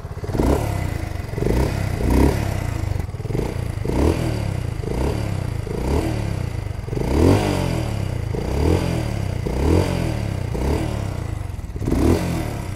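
BSA Gold Star 650's single-cylinder engine showing off its exhaust note: the throttle is blipped about once a second, each rev rising and falling back to a steady idle, a dozen or so times.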